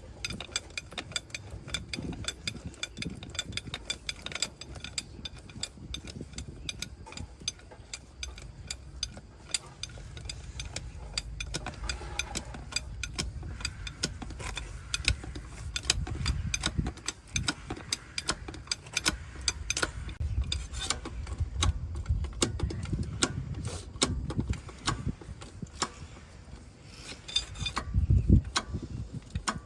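Metal hand tools clicking and clanking in many quick strikes over a low rumble, with a louder low thud near the end.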